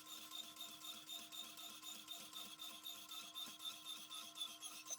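A power saw cutting metal bar stock runs faintly, a steady machine hum with a fast, even ticking over it. The ticking stops near the end while the hum continues.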